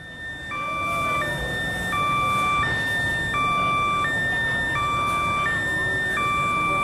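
Electronic two-tone railway warning alarm, a higher and a lower note alternating steadily, each held about two-thirds of a second, warning of an approaching train.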